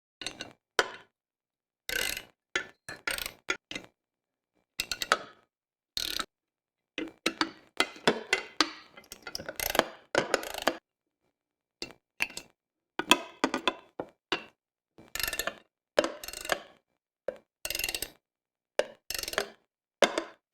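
Ratchet wrench clicking in short bursts and metal parts clinking as bolts are tightened on a can crusher's metal frame.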